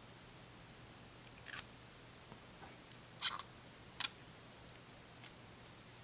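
A few short, sharp clicks and taps of a smartphone being handled while small protective stickers are pressed over its ports. The loudest click comes about four seconds in.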